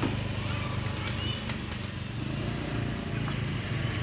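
A steady low hum runs under a few faint, short lovebird chirps, with a single sharp click about three seconds in.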